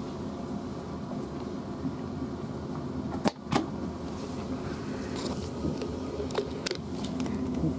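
Cabin noise of a Class 450 Desiro electric multiple unit pulling away from a station: a steady hum from the traction equipment over the running noise of the train. Two sharp knocks come about three seconds in, with a few lighter clicks later.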